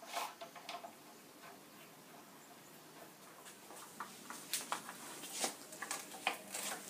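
Light, scattered knocks and clicks of a wooden bed side rail being handled and fitted against a headboard, a few near the start, then busier from a little past the middle.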